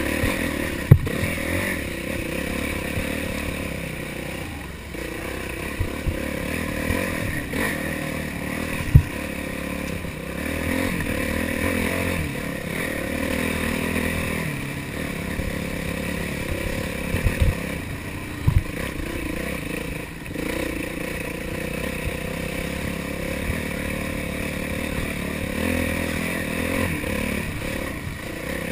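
Yamaha YZ450F dirt bike's single-cylinder four-stroke engine revving up and down as it is ridden hard over a rough trail. Sharp knocks and clatter from the bike hitting rocks and roots cut through, the loudest about a second in and near nine seconds, with a few more close together around two-thirds of the way through.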